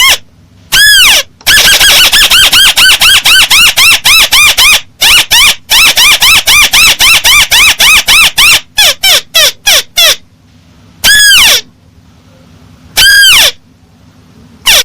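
Recorded call of a paddy-field crake (burung tikusan sawah): loud, fast runs of short rising-and-falling notes, several a second, broken by brief gaps. Near the end come two longer single notes about two seconds apart.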